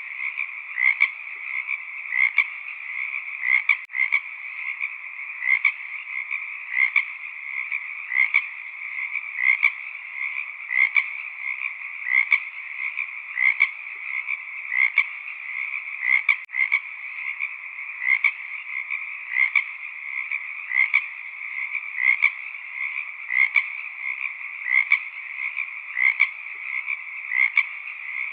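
Chorus of frogs calling: a continuous dense chorus with louder individual calls standing out every second or so, often in pairs.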